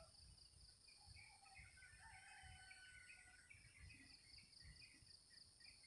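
Faint outdoor ambience: a steady, fast-pulsing high-pitched insect drone, with a rooster crowing in the distance and scattered bird chirps.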